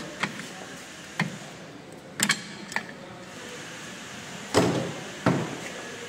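Sharp metal clicks and clinks of pliers working the handbrake cable and spring free from a rear drum brake shoe. There are about six separate clicks, the loudest about two seconds in and twice near the end.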